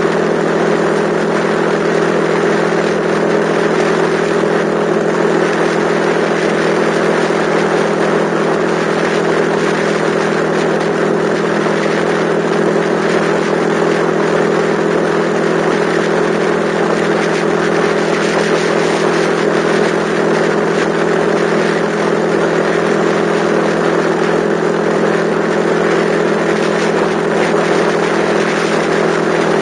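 Yamaha XTZ125's single-cylinder four-stroke engine running at a steady cruising speed, with a steady rush of wind and road noise over it.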